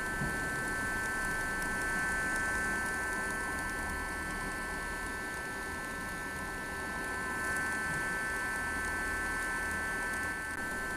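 Homemade mini vacuum built from a 12 V CPU fan in a cardboard box, running steadily and drawing air through its hose. It makes a whine of several steady high tones over an airy hiss.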